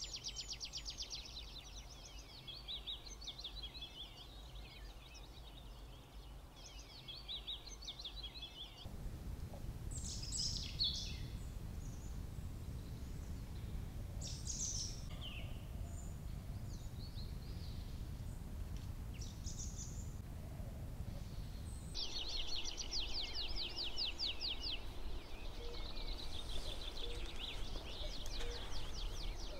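Songbirds singing in rapid, high, repeated trills. About nine seconds in, a low steady rumble comes in under scattered shorter bird calls; at about twenty-two seconds it stops and the fast trilling returns.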